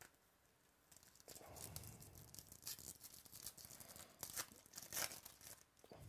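A foil trading-card pack wrapper being torn open and crinkled by hand. A run of crackly rips and rustles starts about a second in and is loudest near the end.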